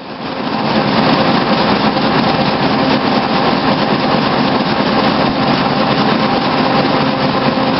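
Printing press running: a steady mechanical din that fades in over the first second and then holds level.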